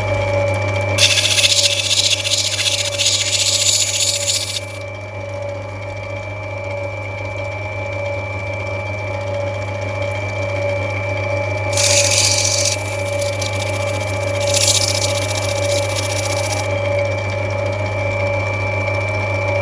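Lapidary grinding wheel's motor running with a steady hum, while a rough opal is pressed against the wheel in three spells of hissing grinding: one of about four seconds near the start, then two shorter ones past the middle. The opal is being rubbed back to grind away potch and bring up the colour bar.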